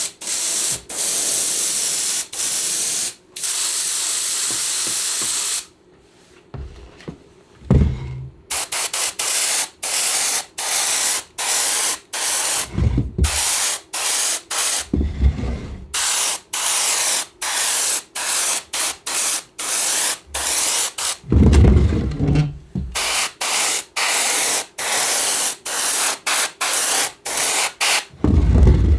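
Spray gun hissing in many short spurts with brief gaps between them, typical of spraying adhesive onto upholstery foam. A few low thuds come between the spurts, and there is a quieter pause of about two seconds a quarter of the way in.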